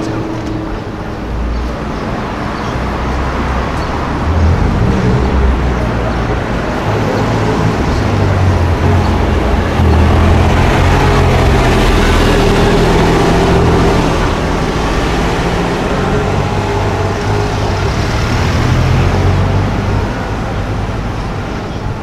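Porsche 911 Carrera GTS flat-six engine running at low revs in city traffic, its pitch stepping up and down, loudest about halfway through, over general traffic noise.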